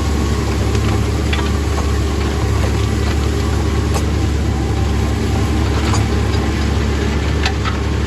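Tractor engine running steadily while pulling a speed disc through the soil, with a few sharp clicks and rattles from the working implement.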